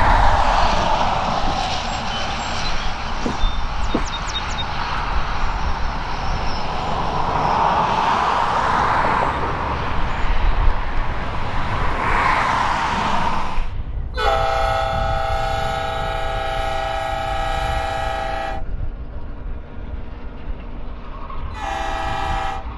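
Steam locomotive of a narrow-gauge train running with a rushing hiss and rumble. About two-thirds of the way through it sounds its chime whistle in one long blast of several notes together, then a short blast near the end.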